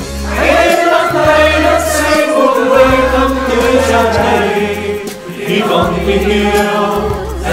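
A small choir of men singing a slow song in harmony over an instrumental backing with held bass notes, the notes changing about once a second.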